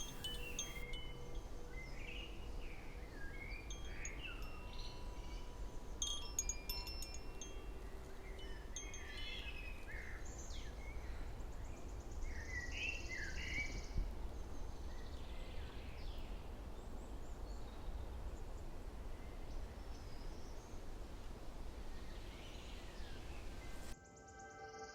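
Quiet pine-forest ambience: a low steady background rumble with scattered short bird calls and faint chime-like ringing tones.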